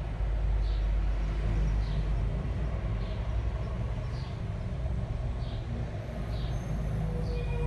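Steady low rumble with a short, high chirp repeating about once a second.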